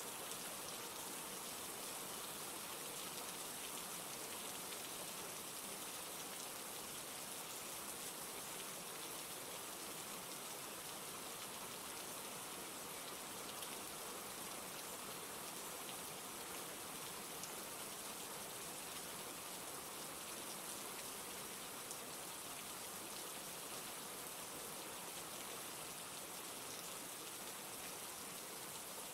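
Steady rain falling, an even hiss of many raindrops with no breaks or changes.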